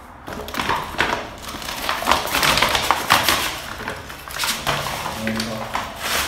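Plastic packaging crinkling and rustling as a dropper seat post and its cable are pulled out of a clear plastic bag. The crackling is dense and loud, with many sharp crackles.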